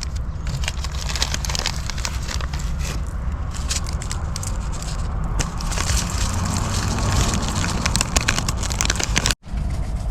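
Plastic packaging crinkling and rustling in many small crackles over a steady low rumble, while the curing salt is handled. The sound cuts out for a moment near the end.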